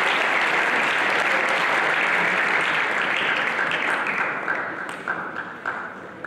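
Audience applauding, loud at first and dying away after about three and a half seconds. A few separate sharp knocks stand out near the end.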